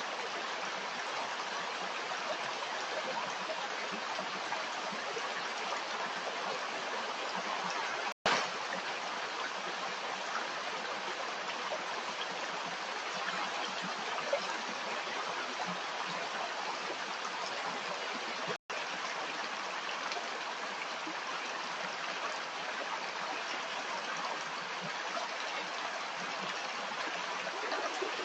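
Stream water running and babbling steadily, with two momentary dropouts, about 8 and 18 seconds in.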